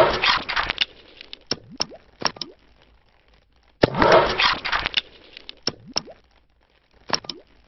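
Sound effects of an animated logo intro: two dense bursts of sharp cracks and crackle about four seconds apart, each followed by a few single sharp knocks with short sliding tones.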